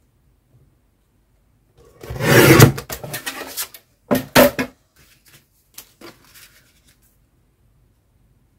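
Paper and card being handled and rubbed against the work surface: a long rubbing scrape about two seconds in, then a shorter burst of rubs and knocks, and a few faint rustles.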